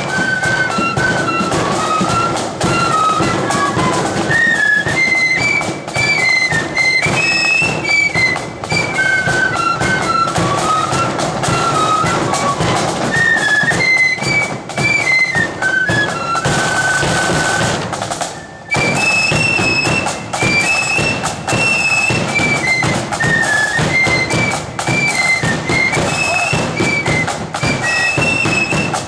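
Marching flute band playing a tune in unison on flutes over side drums and bass drum. About 17 seconds in, the flutes hold a long note and break off briefly, then start a new, higher phrase.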